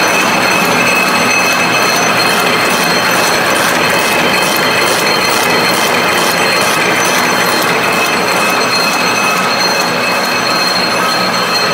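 Single-wire barbed wire machine running: its electric motor, gears and barb-twisting head make a steady, dense mechanical clatter with a high whine over it.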